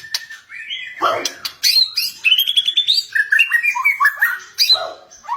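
White-rumped shama (murai batu) singing: a varied song of quick repeated notes, rising runs and trills.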